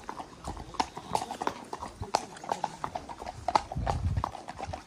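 Several horses walking on a tarmac road, their hooves clip-clopping in an uneven patter. A brief low rumble comes a little before the end.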